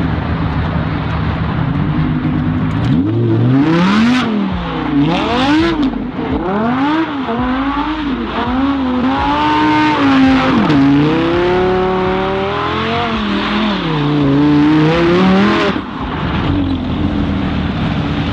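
Lamborghini Huracán's 5.2-litre V10 revving up and dropping back over and over while the car spins donuts, its rear tyres squealing as they spin on the asphalt. The engine idles steadily at first and settles back to idle near the end.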